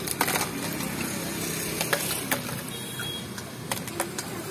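Mojito poured from a stainless steel cocktail shaker into a row of plastic cups, with several sharp clicks of ice and the shaker's rim knocking against the cups, over a steady low background rumble.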